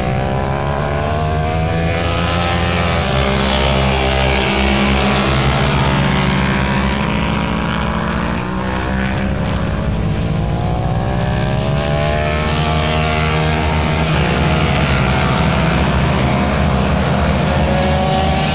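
Several racing motorcycles at speed on a road course, their engine notes overlapping and rising and falling as they rev through the gears and pass by.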